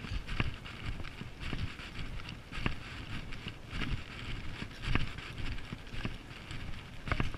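Footsteps walking on a wharf's concrete deck, a steady pace of about two steps a second, over a constant hiss.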